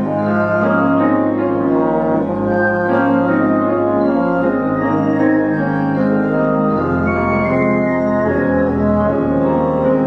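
French horn playing a melody of held notes over a keyboard accompaniment.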